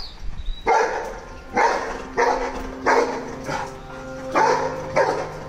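A dog barking over and over, about six loud barks roughly two-thirds of a second apart.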